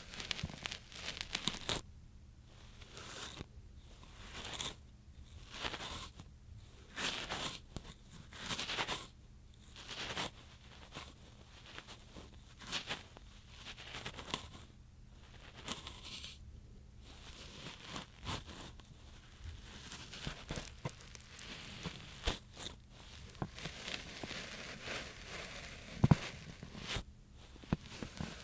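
Ear pick slowly scraping and scratching in an ASMR microphone's ear, close up, in separate scratchy strokes about once a second, later more frequent. One sharp, loud click about 26 seconds in.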